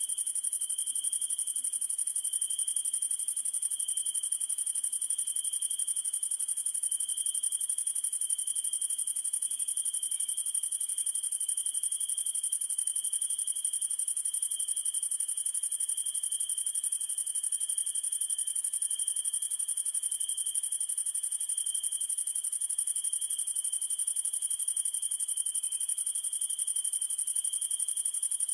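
Steady summer-night chorus of crickets and other insects: a continuous high-pitched shrill with a fainter, steady trill at a lower pitch beneath it.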